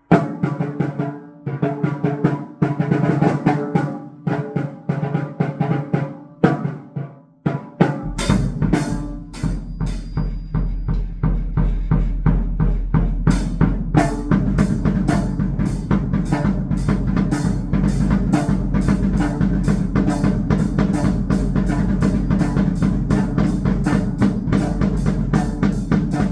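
Drum kit played to a math rock song with guitar: busy, broken-up snare and kick figures over clean guitar notes. About eight seconds in, the bass and full band enter and the drums settle into a steady, driving beat with a quick run of cymbal hits.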